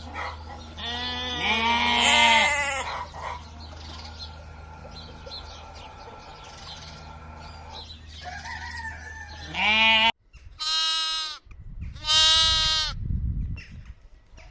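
Sheep bleating: about four wavering calls, a long loud one near the start and three shorter ones in the second half, over a steady low hum that cuts off abruptly about ten seconds in.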